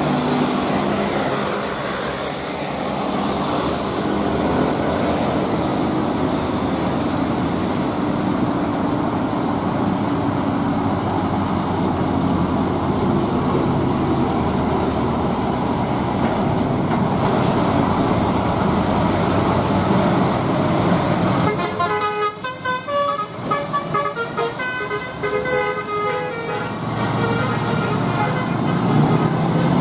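Diesel engine of a heavily loaded Hino selfloader truck hauling an excavator, labouring up a steep grade amid passing road traffic. About two-thirds of the way through, a vehicle's air horn sounds a run of short notes changing in pitch for about five seconds.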